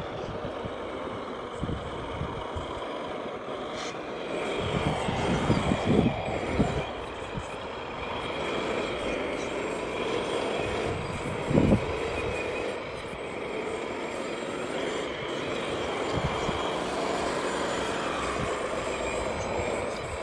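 Radio-controlled scale construction models, a Rába Steiger tractor with dozer blade and a wheel loader, running in dirt with a steady engine-like drone. A few short low thumps come through, the loudest about twelve seconds in.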